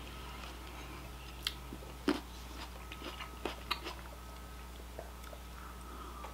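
Close-miked chewing: mouth sounds with a few short, sharp wet clicks, the loudest about two seconds in.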